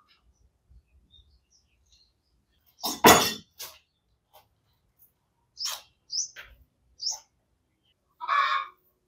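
A few short bird chirps, high and bending in pitch, with a louder short noise about three seconds in and another near the end.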